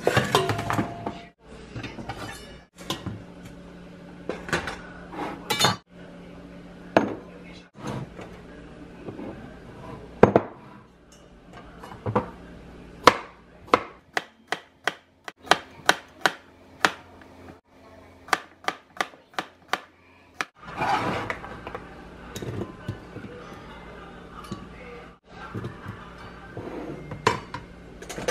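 Chef's knife chopping an English cucumber on a plastic cutting board: sharp knocks of the blade on the board, a steady run of two or three a second in the middle, with kitchen clatter of a steel bowl and the board being handled around them.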